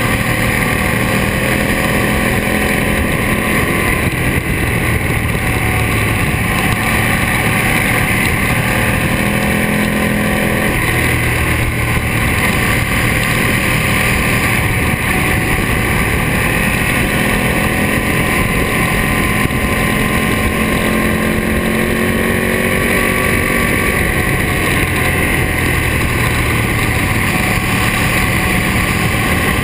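2007 Ducati Monster S4RS's Testastretta L-twin running through Termignoni exhausts under riding load, its pitch climbing as the throttle opens and falling back as it closes, with a sharp drop about eleven seconds in. Wind rushes over the microphone.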